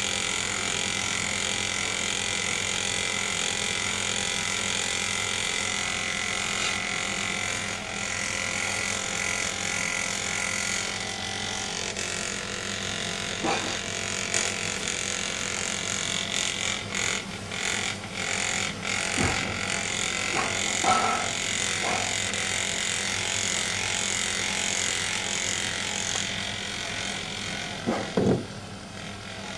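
Handheld electric vibrating massager running with a steady buzz while it is held against a cat. A few brief louder sounds break in during the second half, the loudest near the end.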